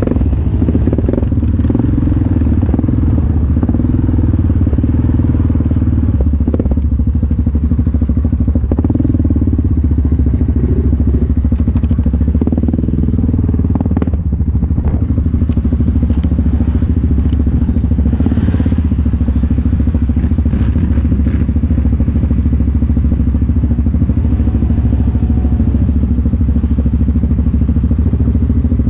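Yamaha Grizzly 700 ATV's single-cylinder engine running steadily at low revs through a slip-on aftermarket exhaust, with a few short knocks and clatters.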